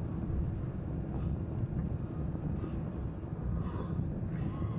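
A vehicle engine running with a steady low rumble.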